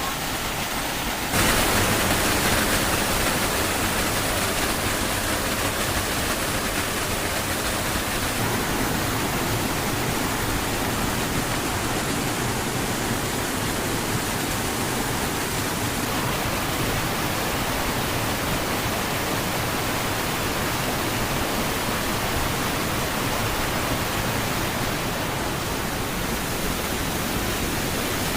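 Waterfall rushing, a steady dense noise from the Allerheiligen cascade, which jumps louder abruptly about a second in.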